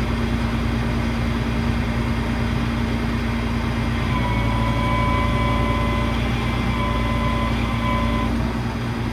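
Ford F-750's 5.9 Cummins diesel engine idling steadily. About four seconds in, a steady high whine joins it and stops again about a second before the end.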